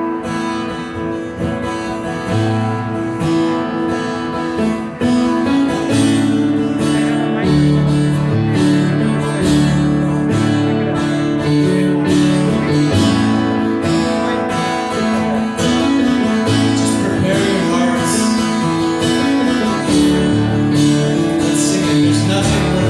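Worship band playing an instrumental song intro: a strummed acoustic guitar over held low notes, growing fuller and louder about five seconds in.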